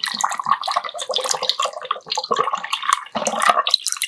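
Close-miked wet eating sounds from a bowl of chueotang: the spoon stirring and slurping broth, with small clicks and crackles throughout.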